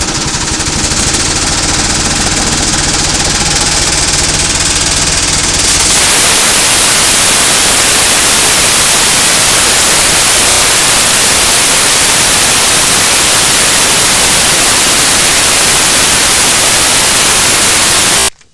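Corn cracking/grinding machine running: a steady motor hum at first, then about six seconds in it turns much louder and harsher, a dense even rushing noise that holds steady and cuts off abruptly near the end.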